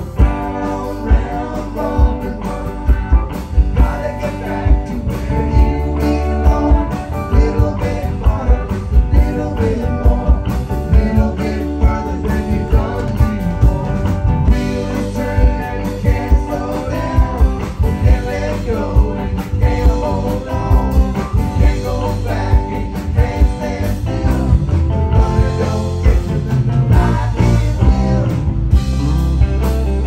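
Live rock band playing, with electric guitar, electric bass and drum kit, and sung vocals from the bassist and guitarist over a steady drum beat.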